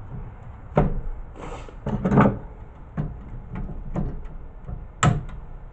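Pliers working parts off a CRT television circuit board, with a handful of sharp metal clicks and clunks about once a second, the loudest near the end.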